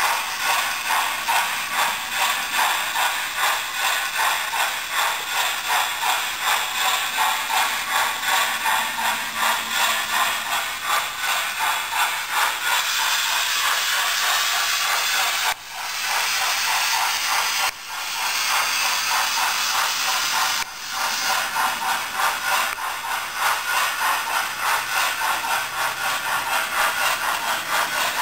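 Sound-fitted Hornby Duchess (R2894XS) 00-gauge model of an LMS Coronation-class steam locomotive, its DCC sound decoder playing steam exhaust chuffs through the model's small speaker as it runs, about two to three beats a second. Midway the beats give way to a steadier hiss for a few seconds, and the sound drops out briefly three times.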